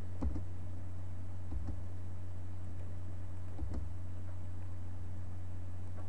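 A few sharp computer mouse clicks, spread a second or two apart, over a steady low electrical hum.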